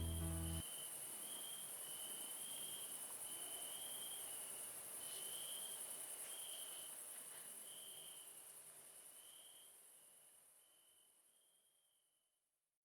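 Insects chirping: a steady high-pitched hiss with a slower pulsing chirp over it, fading out near the end. A last bit of background music cuts off about half a second in.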